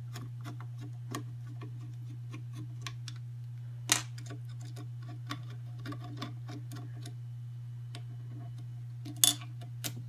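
Screwdriver working screws out of a steamer arm: a run of small irregular metallic clicks and ticks, with two sharper clicks about four seconds in and near the end. A steady low hum sits underneath.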